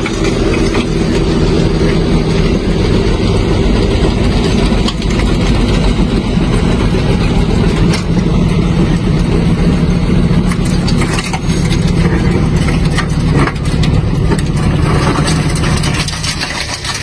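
A vehicle engine running steadily under a constant rushing noise.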